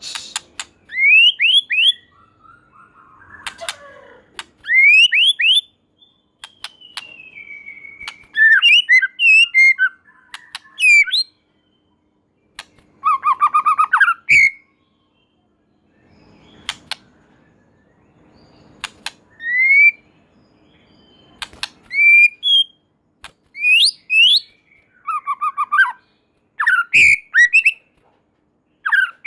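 White-rumped shama singing in loud bursts of clear whistled phrases, quick rising and falling notes, with sharp clicks mixed in and short pauses between phrases.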